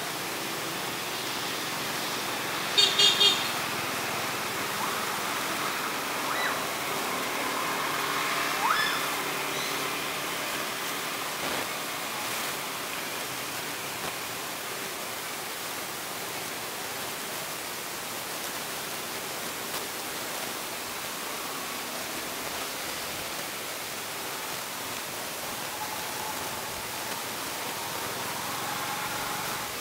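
A vehicle horn toots three times in quick succession about three seconds in, over a steady background hiss. A couple of short rising squeaks follow a few seconds later.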